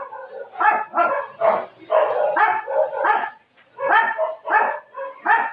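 A dog barking repeatedly, about two barks a second, with a short lull about three and a half seconds in.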